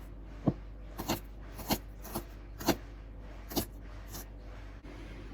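About eight sharp, irregularly spaced knocks and taps of kitchen utensils while cooking, roughly two a second, over a low steady background; a faint steady hiss comes in near the end.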